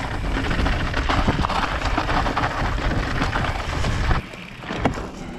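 Wind buffeting the microphone: a loud rushing noise with a deep rumble that drops off suddenly about four seconds in, followed by a sharp click.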